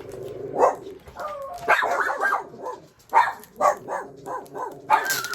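Pet dogs barking over and over in short, quick barks.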